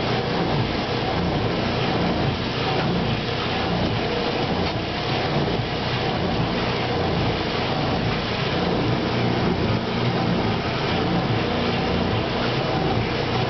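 1957 Speed Queen wringerless washer filling: water pours from the fill spout into the tub onto the clothes in a steady rushing splash, with a low steady hum underneath.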